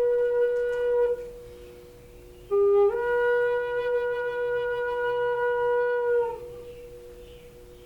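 A flute playing slow, long held notes: one note fades about a second in, then a brief lower note steps up into a long held note that lasts until about six seconds in and then fades.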